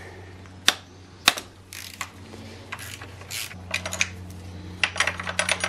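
Ratchet wrench clicking in short runs of rapid ticks as it loosens the 13 mm upper thermostat housing bolt on a BMW E36 M3 engine, with a few single sharp clicks of the tool before the runs.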